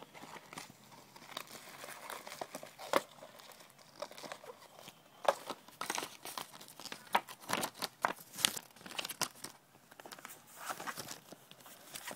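Packaging being handled: irregular crinkling and rustling with sharp crackles, busiest in the middle and easing off near the end.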